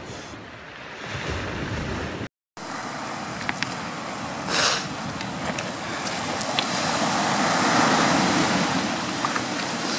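Surf breaking and washing up a pebble beach, with wind on the microphone; the wash swells to its loudest late on. The sound cuts out completely for a moment about two seconds in.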